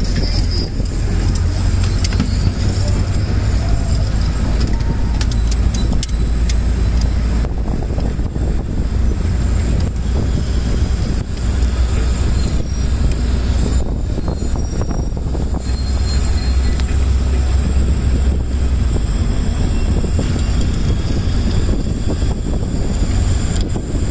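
Steady low rumble of a moving vehicle: engine and tyre noise on a paved road, continuous throughout.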